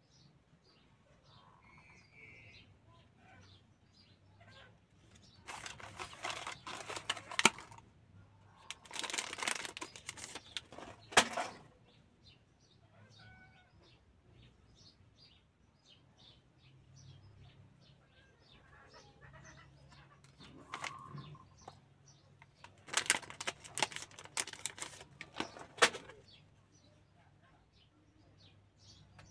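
Trading cards handled and slid against each other in the hands, in bursts of rustling and scraping with sharp clicks: about six seconds in, again from about eight to eleven seconds, and again about twenty-three seconds in.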